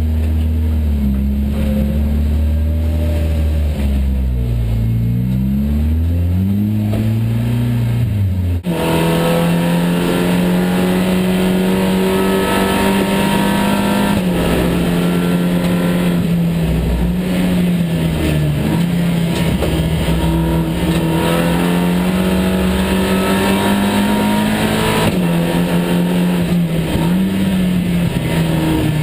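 SEAT León Supercopa race car's turbocharged four-cylinder engine, heard from inside the cabin. It starts at low revs, rising and falling as the car pulls away. About nine seconds in it cuts abruptly to the engine running hard at high revs at race speed, with a few brief dips in pitch at gear changes.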